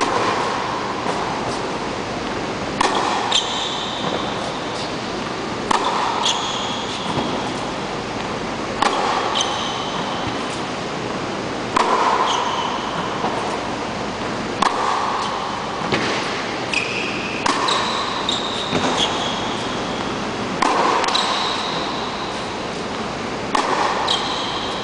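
Tennis balls struck by a racket in a steady rally on an indoor hard court, a crisp hit about every three seconds, several followed by short high shoe squeaks on the court surface. A steady hiss runs underneath.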